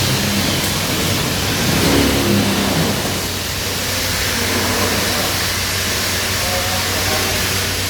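Large 400 kg industrial washing machine running: a steady low hum under an even rushing noise, briefly louder about two seconds in.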